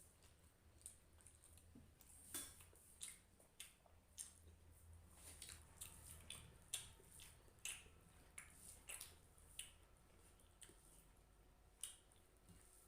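Eating sounds of rice and fish curry: soft wet clicks and smacks of chewing, coming irregularly about one or two a second.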